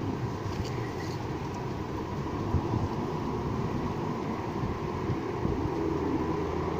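Steady hum of road traffic, with wind rustling leaves.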